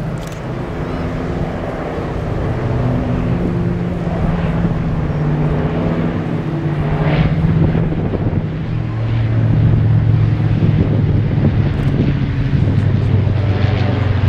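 Vintage piston-engined warplanes flying overhead, several engines droning at slightly different, shifting pitches. The drone grows louder in the second half as the aircraft come closer.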